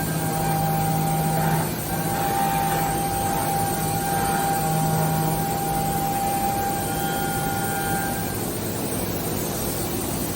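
Okuma & Howa Millac 853PF-5X CNC machining center running under power: steady machine noise with a low hum that comes and goes and a steady whine that cuts out about eight seconds in.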